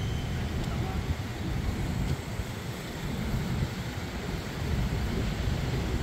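Steady low rumble of outdoor urban background noise, without any distinct event.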